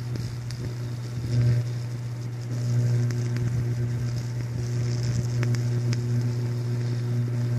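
Downed live power line arcing against the ground, shorting out: a loud, steady electrical buzz with sharp crackles through it. The buzz swells louder about a second and a half in.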